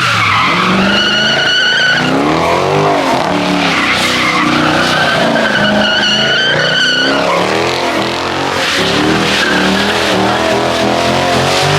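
A car's engine revving up and down hard while its tyres skid and squeal on wet pavement, with two long tyre squeals, about a second in and about six seconds in.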